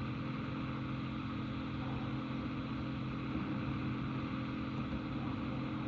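Steady low hum with hiss on a recorded 911 telephone call, with the narrow, muffled sound of a phone line.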